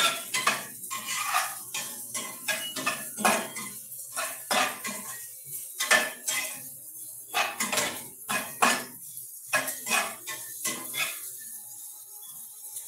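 Metal spatula scraping and clanking against a frying pan as food is stir-fried, in quick irregular strokes that stop near the end.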